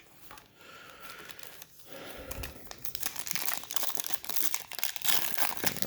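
Trading card packaging being torn open and crinkled by hand: quiet for about two seconds, then a dense run of crackling and crinkling.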